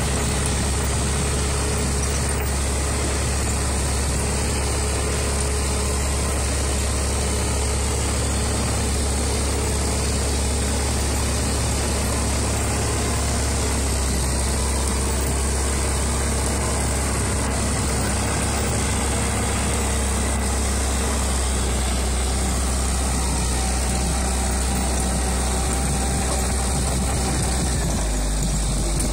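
Diesel engine of an LKT forestry skidder running steadily as the machine crawls along in low gear on chained tyres.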